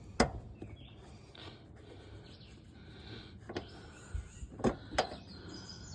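A few sharp clicks and taps of bolts being run in a few threads by hand, the loudest about a quarter second in and several more between three and a half and five seconds in.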